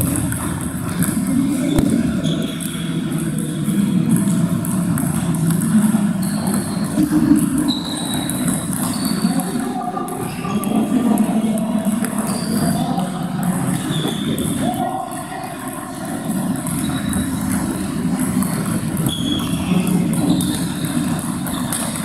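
Table tennis balls clicking off paddles and tables in a large, echoing hall. Several rallies on neighbouring tables overlap, so the clicks come in quick, irregular runs throughout.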